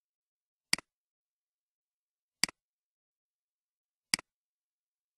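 Three computer mouse clicks, evenly spaced about a second and a half apart, each a sharp snap followed at once by a softer one, like a button pressed and released.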